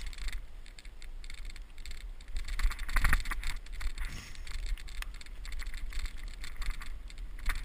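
Mongoose XR-350 alloy mountain bike running fast over a rough dirt trail: tyres on the dirt with many small rattles and clicks from the frame and drivetrain over the bumps, over a steady low rumble of wind on the microphone.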